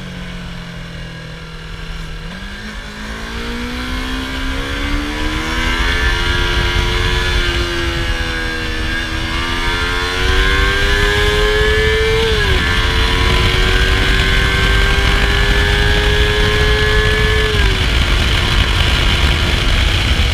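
Yamaha YZF-R25's 249 cc parallel-twin engine on its stock exhaust, pulling up through the revs under acceleration, with two quick drops in pitch from upshifts about twelve and eighteen seconds in.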